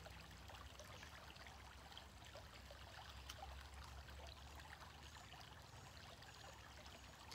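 Faint, steady trickle of a shallow creek running over its bed.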